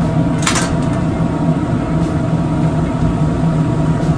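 Steady roar of a commercial kitchen's gas range burners running on high, with the low hum of the ventilation under them. A brief sharp click, like metal tapping metal, about half a second in.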